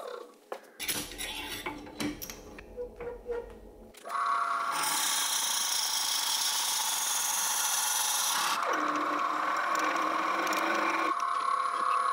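A few knocks and clicks, then a wood lathe starts up about four seconds in and a turning tool cuts into the spinning wooden goblet blank with a steady hiss for about four seconds. The cutting then goes on more lightly over the lathe motor's hum.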